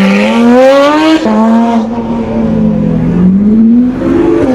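A performance car's engine accelerating hard through the gears: the pitch climbs, drops sharply at an upshift about a second in, holds, then climbs again to another shift near the end.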